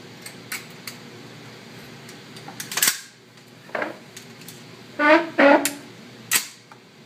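Gunshots on an indoor shooting range: single sharp reports a few seconds apart rather than a sustained burst, the loudest a little before 3 s in and just after 6 s, with fainter cracks in the first second and about 4 s in.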